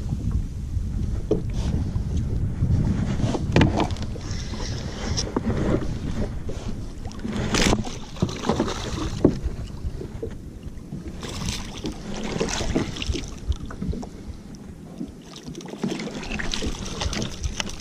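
Wind rumbling on the microphone over water splashing and scattered knocks, as a hooked kingfish thrashes at the surface beside a sit-on-top kayak. The wind rumble eases near the end.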